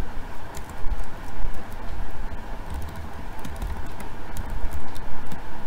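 Computer keyboard being typed on, irregular key clicks, over a low steady background rumble.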